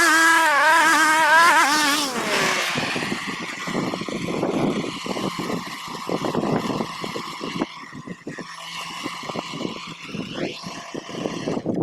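Small petrol engine running at working speed. Over the first two seconds its pitch wavers and rises, then falls away. After that it settles into a rough, uneven run.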